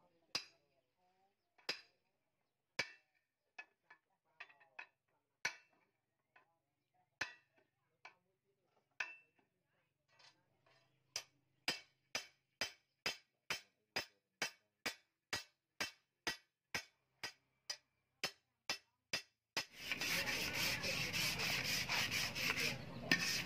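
Sharp hammer knocks fitting a wooden handle onto a long knife made from a chainsaw bar. The knocks are irregular at first, then an even run of about two a second. Near the end comes a steady rasping of sandpaper rubbing along the wooden handle.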